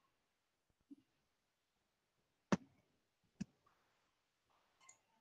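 A few sharp clicks of a computer mouse over near silence: two clearer ones about a second apart in the middle, with fainter ones before and after.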